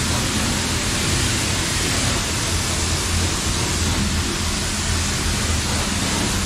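Pressure-washer wand spraying water steadily over a car: an even hiss with a low hum underneath.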